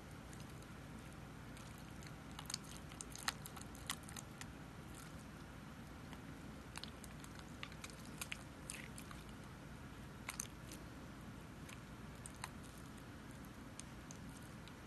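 Homemade slime squeezed, stretched and kneaded by hand, giving faint squishing with scattered little clicks and pops, in two bunches: a few seconds in and again about halfway through.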